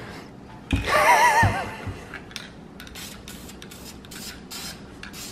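Aerosol spray-paint can sprayed in a quick run of short bursts, each a sharp hiss, starting about two seconds in. Before that, about a second in, there is one brief, wavering voice-like tone.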